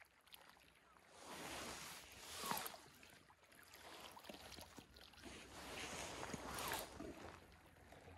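Small waves lapping faintly against shore rocks, coming in a few soft swells of a second or so.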